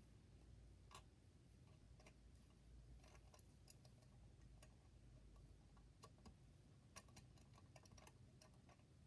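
Near silence with faint, scattered clicks and taps of a trumpet being handled while its parts are adjusted.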